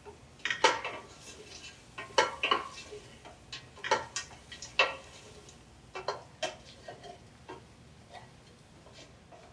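Irregular clicks and knocks of a kitchen utensil against a cooking pot, the busiest stretch in the first five seconds.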